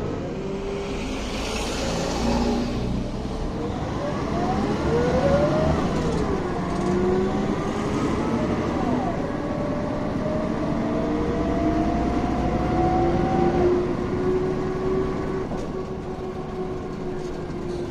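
City bus pulling away and accelerating: its drivetrain whine rises in pitch in several steps and falls back between them, ending in one long climb about three-quarters of the way through, over the steady running of the engine.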